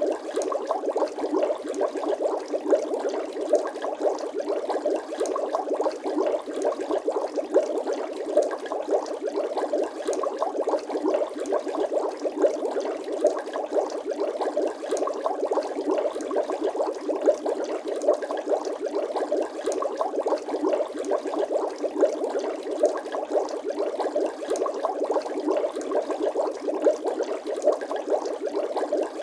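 Continuous bubbling water, a dense stream of many small bubble pops that goes on without a break.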